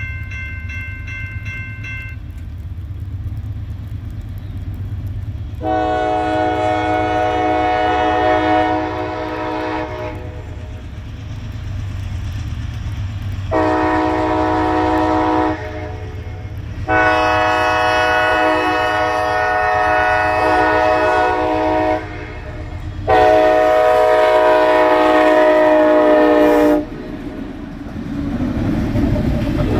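Diesel freight locomotive air horns sounding at a grade crossing: a higher-pitched horn cuts off about two seconds in, then a lower chord horn gives four blasts, the second one short, over the steady low rumble of the approaching locomotives. Near the end the rumble swells as the locomotives pass.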